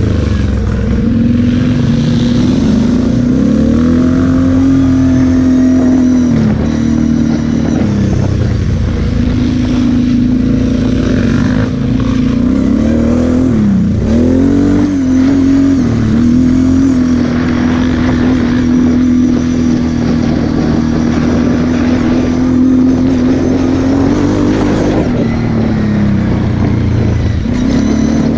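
Onboard sound of a Kawasaki KFX 700 sport quad's V-twin engine riding a dirt trail, holding a steady high note under throttle. The note dips and climbs again as the throttle is eased off and reopened, about six, fourteen and twenty-five seconds in.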